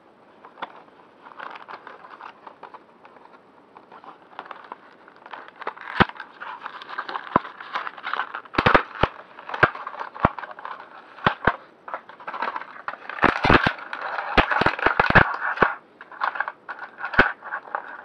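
Cardboard box and clear plastic wrapping of a fidget cube being handled and torn open: irregular crinkling crackles with sharp clicks, coming in dense flurries around the middle and again in the second half.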